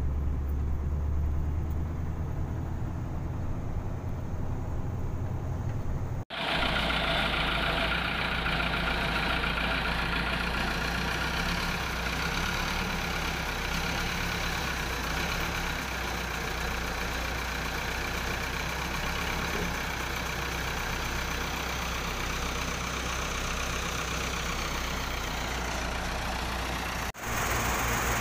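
Heavy vehicle engine running steadily, with a low hum. The sound breaks off abruptly twice, about six seconds in and shortly before the end, and each time it comes back with a different balance of low rumble and higher noise.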